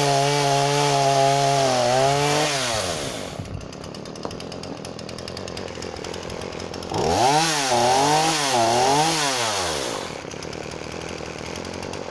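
Husqvarna 236 two-stroke chainsaw at full throttle in a cut through a log. The revs drop to idle about two and a half seconds in. About seven seconds in it is blipped up and down three times in quick succession, then settles back to idle.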